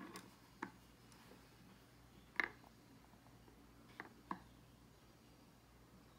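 Near silence broken by four faint, short clicks: one about half a second in, a sharper one about two and a half seconds in, and two close together about four seconds in.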